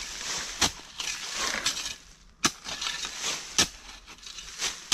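Narrow digging spade driven into gritty soil: sharp strikes every second or two, with the crunch and scrape of earth being loosened between them.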